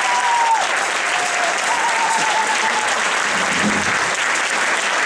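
Concert audience applauding steadily, with a few held high tones over the clapping in the first three seconds.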